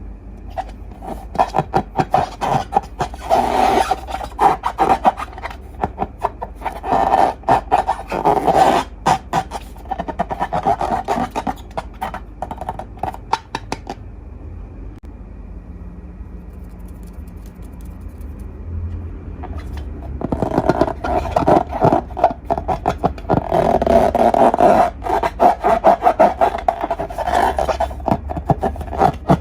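Slime being handled: close crackling, clicking and rubbing in repeated bursts, quieter for a few seconds in the middle.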